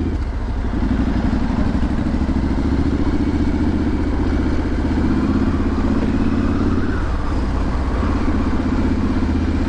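Triumph Street Scrambler's 900 cc parallel-twin engine running through its exhaust at low riding speed. The engine note climbs a little in the first second, holds steady, then eases slightly about seven seconds in.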